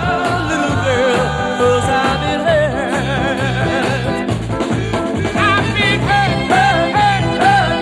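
Oldies rock and roll record playing, with a steady bass line and a melody that comes in with vibrato about five seconds in.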